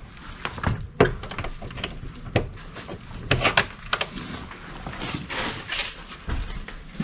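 Footsteps crunching and scuffing over a debris-strewn floor, with irregular sharp knocks and clicks.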